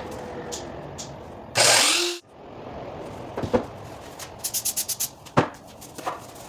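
Workshop handling noises while crown molding is being prepared for cutting: a short loud rush of noise that cuts off abruptly, a few sharp knocks, and a quick run of about eight clicks.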